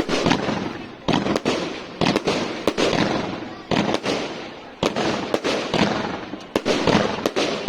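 Fireworks going off in a dense barrage: sharp bangs several times a second, each followed by a crackling, echoing tail.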